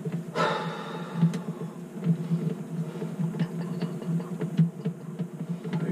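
Scattered light clicks and taps of hands working on a garbage disposal's sink mounting flange, over a steady low hum.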